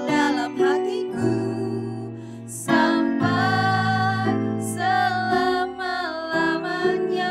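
A children's worship song sung by a woman's voice over instrumental accompaniment, with held notes and a steady flowing melody.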